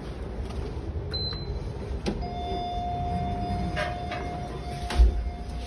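Kleemann passenger lift in operation over a low machine rumble. A short high beep comes about a second in, then a click and a steady whining tone that holds for the rest of the clip. A heavy thud sounds near the end.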